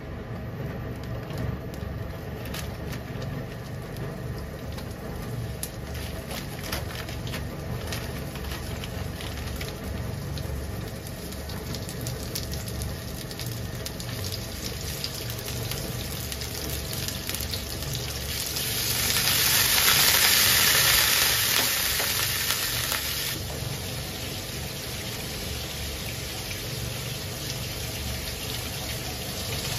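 Chicken pieces frying gently in oil in a nonstick frying pan, with faint crackles over a steady low hum. A little past the middle, a loud rushing hiss swells for about five seconds and then stops abruptly.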